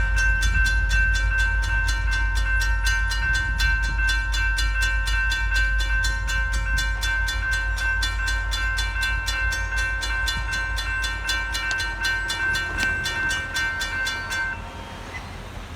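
A train rumbling past and fading, with a bell ringing rapidly, about four strokes a second. The bell cuts off abruptly near the end.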